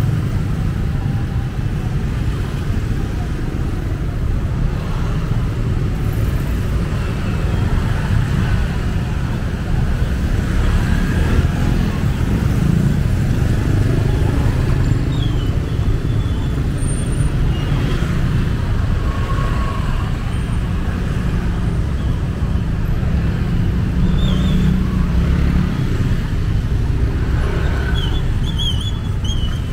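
Steady road traffic: a constant low rumble of passing vehicles, with a few short high chirps in the second half.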